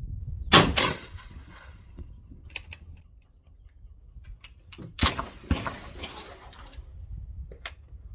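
Sharp mechanical clacks from handling a single-barrel .410 break-action shotgun: two quick clacks just after the start, lighter clicks, then another pair about five seconds in and a last click near the end.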